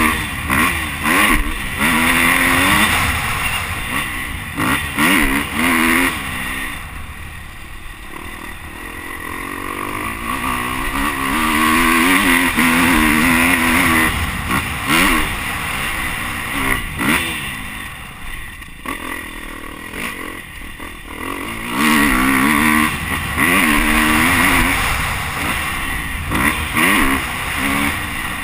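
Motocross bike engine revving hard and easing off over and over as it is ridden through the gears, its pitch climbing and dropping. It backs off in two longer lulls, about a third of the way in and again past halfway, with a steady rush of wind noise over it.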